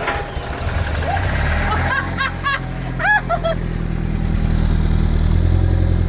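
Freshly rebuilt Land Rover Series 2A petrol engine catching and running on choke at its first start after the rebuild, settling into a steady idle and growing louder from about four seconds in.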